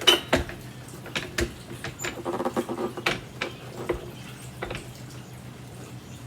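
A string of sharp clicks and knocks, with a short rattle about two and a half seconds in, as the handle of a vintage Hoover Convertible upright vacuum is worked into place.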